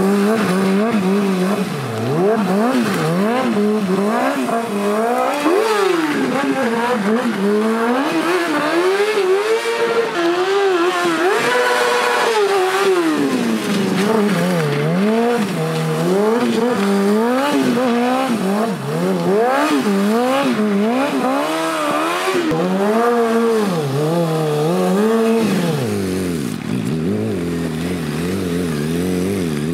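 Motorcycle engine revving up and down repeatedly under constant throttle play during stunt riding (slides and wheelies). Near the end it settles to a steadier, lower note.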